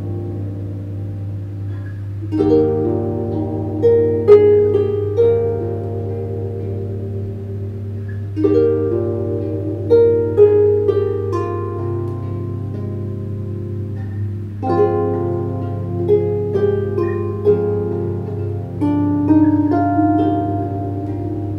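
Camac Hermine 34-string lever harp played solo: plucked notes that ring on and overlap, in phrases that begin with a louder stroke about every six seconds.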